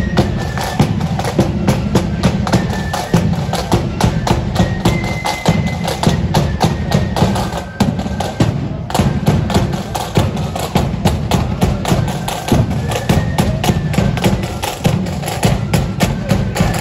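Marching flute band playing on the march: snare drums rattling out a quick beat over a steady bass drum, with the flute melody faintly above.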